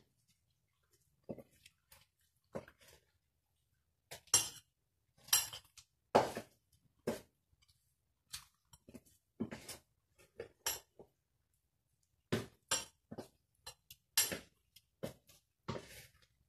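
A spoon clinking and scraping against a stainless-steel mixing bowl while a thick batter is stirred, in irregular knocks and scrapes.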